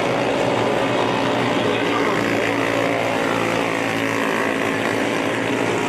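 Junior sprint cars' engines running at racing speed, a steady drone of several overlapping engine tones with no break.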